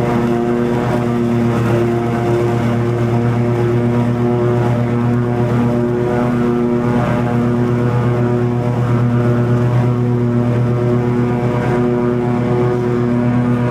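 Toro TimeCutter 50-inch zero-turn mower running at a steady pace while mowing long grass: an even engine drone with the blades turning under the deck.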